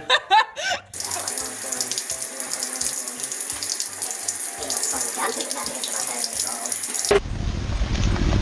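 Water running steadily from a tap into a sink. It cuts off abruptly near the end, giving way to wind buffeting the microphone.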